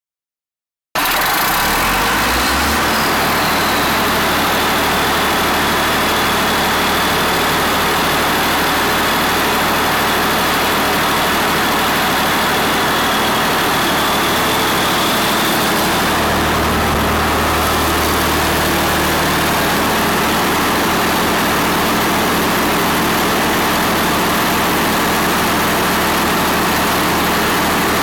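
Rolls-Royce diesel engine of a 187 kVA generator set running loud and steady, with a thin high whine over the first half.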